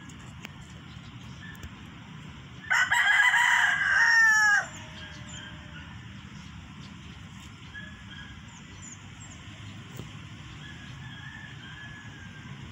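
A rooster crowing once, about three seconds in: one loud call of about two seconds that ends in a falling note, over a steady low background hum.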